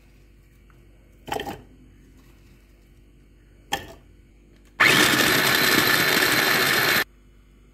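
Electric mini food chopper's motor running for about two seconds as its blade chops red onion, starting and stopping abruptly. Earlier come two brief knocks.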